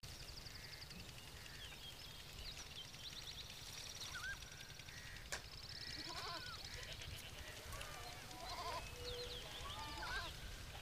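Faint rural ambience: short bird chirps and fast high trills, with animal bleating now and then, over a low steady hum.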